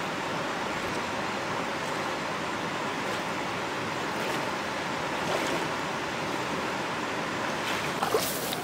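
Steady rush of a flowing shallow river, with water splashing around legs wading through it. Near the end, a brief swish of tall grass being pushed through.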